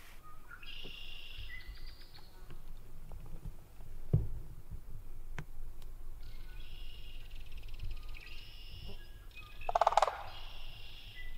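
Small animals calling from a cattail marsh: high, buzzy, rapidly pulsed trills, a short one early on and a longer one through the second half, with a low knock about four seconds in and a louder burst near the end.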